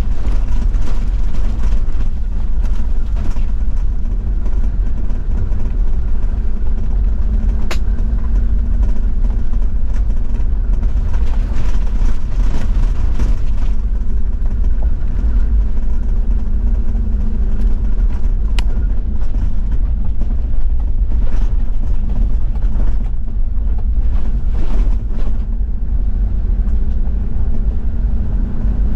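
Toyota Land Cruiser 70-series diesel driving on an unpaved forest road: a steady low engine drone with road and tyre rumble. There are two sharp ticks, one about 8 seconds in and one about 19 seconds in.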